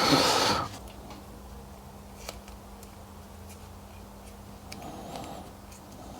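Small handling sounds of electrical wires being worked through a motorcycle frame: a short rustle at the start, then a few faint clicks over a steady low hum.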